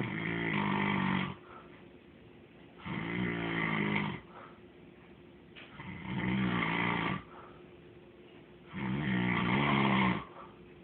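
Snoring: four pitched, buzzy snores, one about every three seconds, each lasting over a second, with quiet breathing between.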